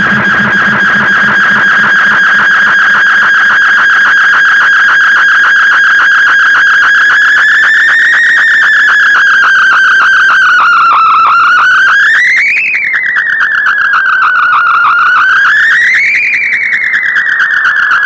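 Synthesizer tone from a Teenage Engineering OP-1 run through a Waldorf 2-Pole filter and an Artec analog delay: one high, sustained note with a fast flutter. It holds its pitch for about eight seconds, then slides down and up, swooping sharply upward twice near the end as the knobs are turned.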